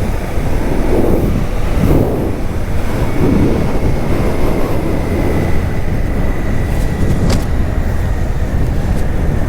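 Suzuki V-Strom 800DE's parallel-twin engine running while the bike is ridden along, with heavy wind noise on the microphone.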